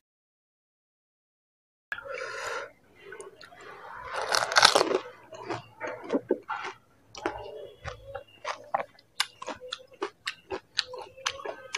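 Close-miked eating of panipuri, after two seconds of total silence: a loud bite into a crisp puri about four to five seconds in, then rapid, wet chewing clicks.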